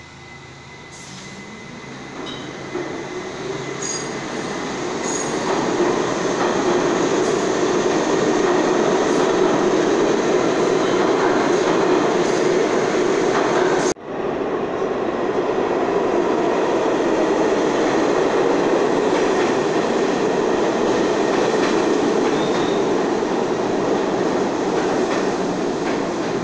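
New York City Subway G train cars running on the rails: a steady rumble of wheels that builds over the first several seconds, with faint high wheel squeals a few seconds in. The sound breaks off abruptly about halfway through, then picks up again with a train moving past on the near track.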